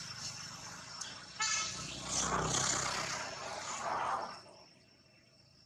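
Road traffic passing, with a short vehicle horn toot about a second and a half in. The traffic noise falls away about four seconds in, leaving a steady high insect buzz.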